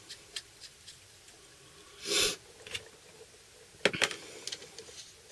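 Small metal clicks and taps of handling parts of a hand rivet gun while a nosepiece is fitted, with a short hiss about two seconds in and a sharper click, the loudest sound, about four seconds in.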